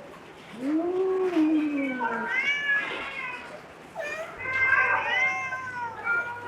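Domestic cats meowing: one long, low, drawn-out meow that rises and falls about half a second in, then a string of shorter, higher meows, several of them overlapping.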